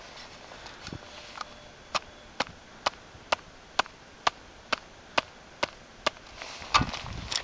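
Gloved hand tapping on an aluminium shovel blade laid on top of an isolated snow column during an extended column test. A few faint taps come first, then about ten sharp, evenly spaced taps at about two a second. A louder scuffing thump follows near the end.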